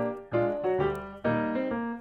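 Background music: piano played as a melody with chords.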